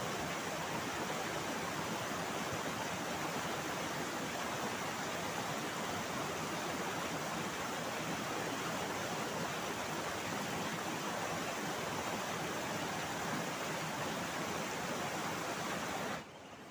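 Shallow river rapids rushing over rocks: a steady, full rushing of water. Near the end it drops off suddenly to a much quieter flow.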